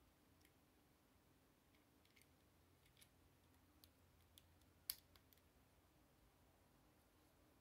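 Faint clicks of plastic Lego pieces being handled and pressed together: a scatter of light ticks, with one sharper snap about five seconds in.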